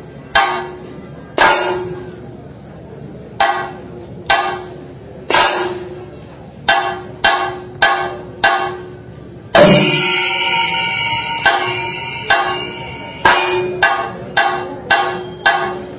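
Chenda drums in a Kerala thayambaka: single sharp stick strokes at uneven spacing, each ringing briefly. About ten seconds in, the drums break into a dense, loud roll for about two seconds, then the separate strokes resume.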